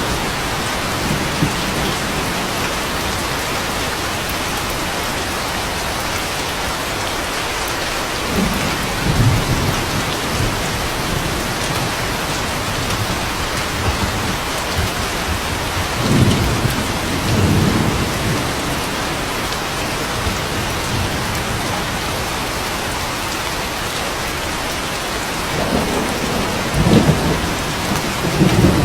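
Steady heavy rain, with low rolls of thunder rising and fading three times: about eight seconds in, around the middle, and near the end.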